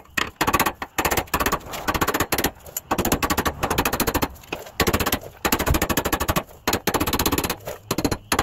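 Hammer blows on the old rear wheel hub bearing assembly of a 2014 Nissan Murano, knocking the seized bearing loose. The metal-on-metal strikes come in quick bursts of many rapid blows, with short pauses between them.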